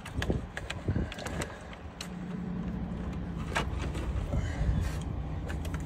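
Scattered light clicks and rattles of wires and plastic dash trim being handled, over a steady low hum that comes in about two seconds in.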